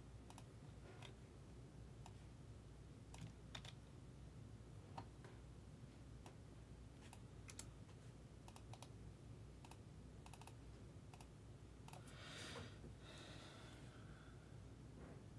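Faint, scattered computer keyboard and mouse clicks, irregularly spaced, over quiet room tone, with a brief soft rustle about twelve seconds in.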